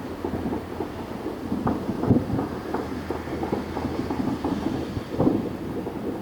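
Distant New Year's fireworks: many overlapping bangs and pops run together into a continuous rumble. The loudest reports come about two seconds in and again about five seconds in.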